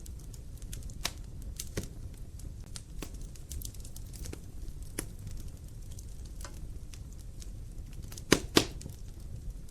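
Wood logs burning in a fireplace, crackling with scattered sharp pops over a low steady rumble, and two louder pops in quick succession near the end.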